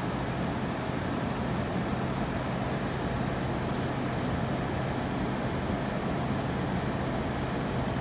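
GE 5500 BTU window air conditioner running while it cools: a steady rush of fan air with a low, even hum underneath.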